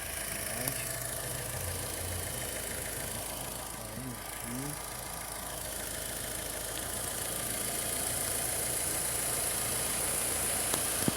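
Fiat Uno Vivace's 1.0 8v four-cylinder engine idling steadily, free of the noise that a slack timing belt had been making: the belt fault is cured.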